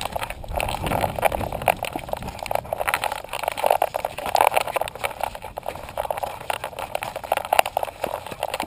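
A climbing dog's harness-mounted action camera being jostled, giving a dense, irregular run of scuffs, knocks and rubbing noise against the camera housing.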